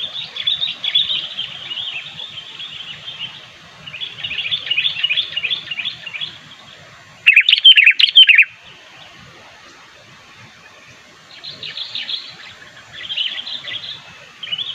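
Sooty-headed bulbul (kutilang) calling: bursts of rapid, chattering chirps repeated in several phrases with short pauses between them. The loudest phrase comes about seven seconds in.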